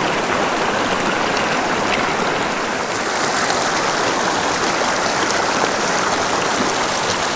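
Small rocky creek running over stones: a steady rush of water.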